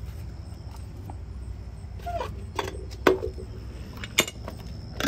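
Knocks and clicks of a plastic RV sewer-hose nozzle being handled at the dump inlet, with a short squeak falling in pitch about two seconds in, over a steady low hum. The loudest knock comes about three seconds in.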